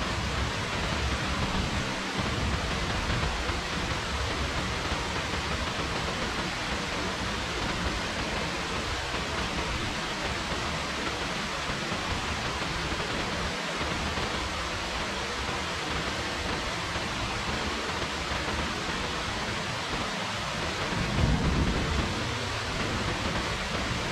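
Steady hiss of rain falling, with a brief low rumble swelling near the end.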